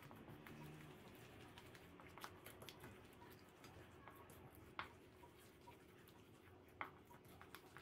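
Faint wet squelching of a spoon stirring thick frying batter in a stainless steel bowl, with small ticks and two sharper clicks about five and seven seconds in as the spoon knocks the bowl.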